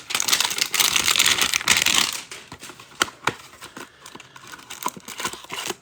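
Plastic trading-card pack wrapper crinkling and tearing for about two seconds, then scattered light taps and clicks as the cards are handled.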